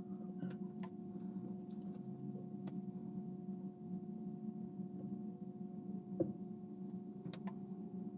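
A steady low electrical hum with a few faint clicks and small taps, and one sharper tap about six seconds in.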